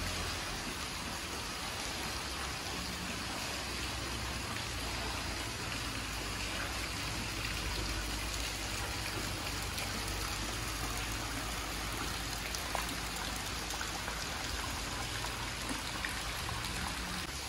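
Steady rain falling on the surface of a shallow courtyard pool and on surrounding trees.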